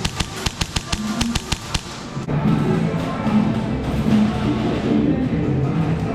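Music with a steady beat. During the first two seconds it is joined by a fast, even string of sharp cracks, about seven a second, that stops abruptly.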